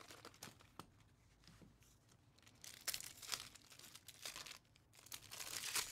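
Foil wrapper and clear plastic sleeve of a 2024 Topps Pristine baseball card pack being torn open and crinkled by hand, in faint, uneven rustles that are loudest about three seconds in and again near the end.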